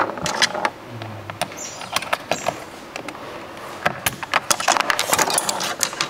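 Mechanical keyboard switches and keycaps being pressed and snapped into place: a run of short, sharp plastic clicks, thickest in the second half.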